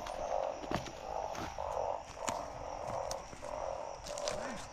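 Breeding chorus of balloon frogs (Glyphoglossus molossus) after heavy rain: many short croaking calls overlapping one another, about two a second, with a few sharp clicks between them.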